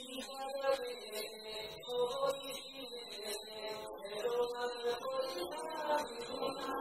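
Santhali folk song: a man singing a melodic line with musical accompaniment and occasional sharp percussive strikes.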